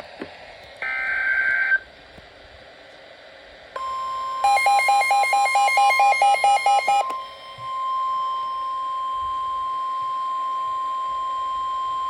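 NOAA Weather Radio emergency alert signal. About a second in comes a brief burst of warbling SAME digital header data. About four seconds in the steady 1050 Hz warning alarm tone starts and holds on, with a rapid beeping of about four beeps a second over it for nearly three seconds.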